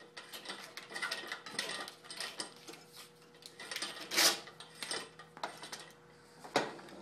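Power cord being pulled through the upright pipe of a quilting-table light stand, rattling and scraping against the pipe in small irregular clicks, with a louder scrape about four seconds in.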